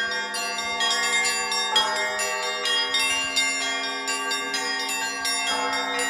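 Russian Orthodox church bells rung by a bell ringer: a quick run of strikes on several bells of different pitch, their tones overlapping and ringing on together.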